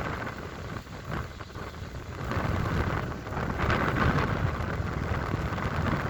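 Storm waves breaking on a stony shore, with wind: a continuous rushing that swells louder a little over two seconds in as a wave comes in.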